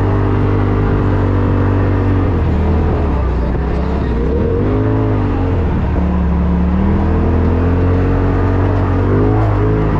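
Polaris RZR Turbo S side-by-side's turbocharged twin-cylinder engine running under load, its pitch dipping and rising with the throttle about halfway through, then climbing again.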